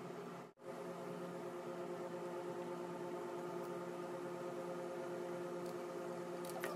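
Quiet background music holding a steady sustained chord, cutting out briefly about half a second in, with a couple of faint clicks near the end.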